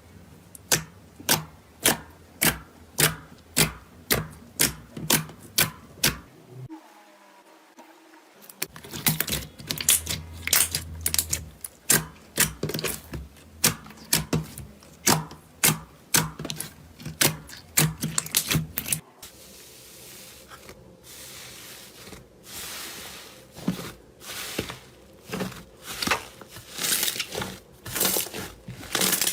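Slime being pressed and worked by hand, giving a series of sharp clicking pops at about two a second. There is a brief pause about seven seconds in, then a denser run of pops, and later a softer crackling stretch before the regular pops return.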